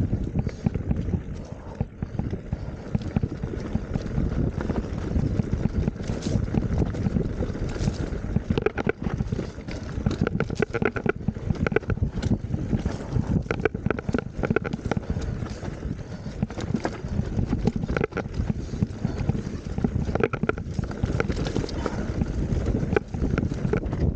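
Mountain bike descending a rough, rutted trail: a steady low rumble of tyres over the ground with a constant clatter of knocks and rattles from the bike.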